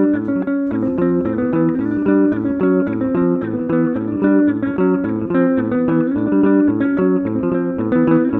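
Background music: plucked guitar over a bass line, notes picked in a steady, even rhythm.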